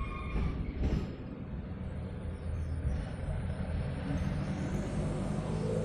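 Heavy truck passing on the road overhead, a low engine rumble with a knock about a second in.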